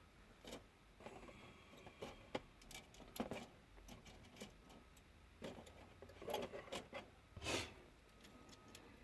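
Plastic miniature sprues being handled and shifted about: faint, irregular light clicks, clacks and rustles, busier and louder about six to seven and a half seconds in.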